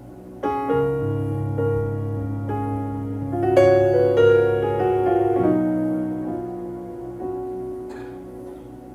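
Slow piano music with held chords, a new chord struck every few seconds and left to ring and fade.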